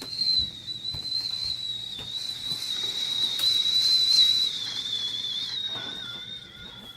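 A high, steady whistle-like tone that wavers slightly and dips a little in pitch near the end, with a fainter, lower tone joining in the last second.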